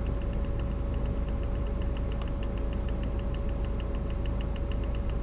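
Scania R420's inline-six diesel engine idling, heard from inside the cab: a steady low rumble with a constant mid-pitched hum and a fast, even light ticking about six times a second.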